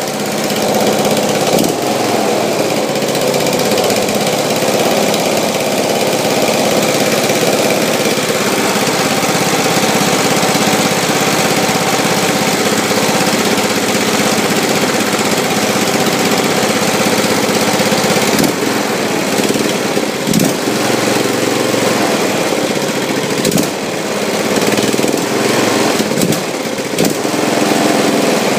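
Briggs & Stratton Intek 15.5 HP single-cylinder OHV engine (Powerbuilt 500cc) running steadily on its first startup, with no throttle cable fitted. Its speed dips briefly a few times in the second half.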